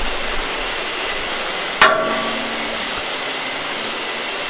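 A steady rushing noise, with one sharp clank about two seconds in that rings briefly.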